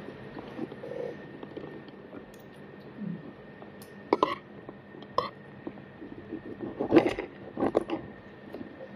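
Mealtime sounds: a fork scraping and clinking against a serving platter a few times, the loudest about seven seconds in, over a faint steady hum.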